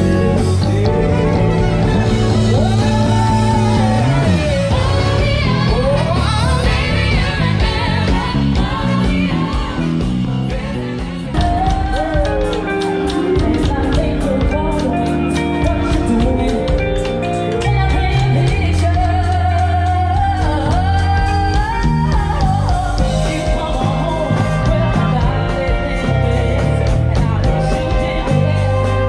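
Live band music with a lead vocal over bass guitar, drums and guitar. About eleven seconds in it cuts abruptly to a different song, sung by a female lead with backing singers.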